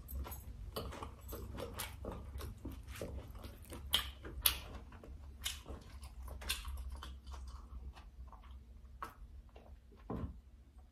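Close-miked chewing of cooked beef pizzle: wet smacking and sticky mouth clicks coming irregularly, over a faint steady low hum.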